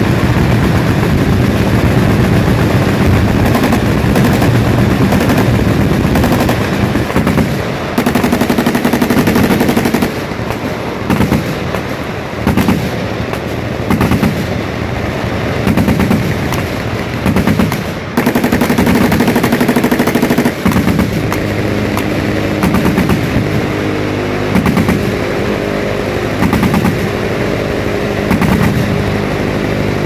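Several machine guns firing full-auto together, a near-continuous rattle of gunfire that breaks into separate bursts for several seconds in the middle.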